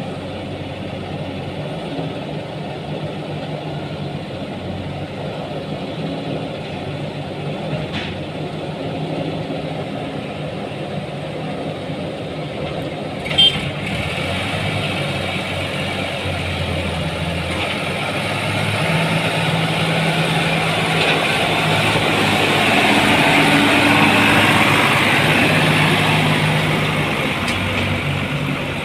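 Diesel engines of tractors and a JCB backhoe loader running steadily close by. There is a sharp knock about 13 seconds in, and the engines grow louder and rougher in the second half.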